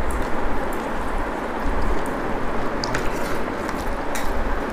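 Rice and egg masala curry being mixed and eaten by hand over a steady hiss, with a couple of faint clicks in the second half.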